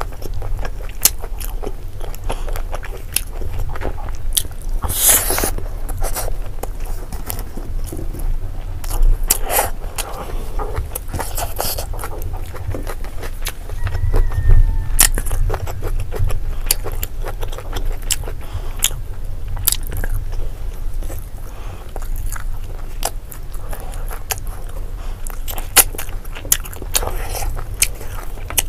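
Close-up mouth sounds of a person chewing fried pork belly and rice: many quick wet clicks and smacks, with a few louder bursts, over a steady low hum. Now and then fingers scrape rice together on the plate.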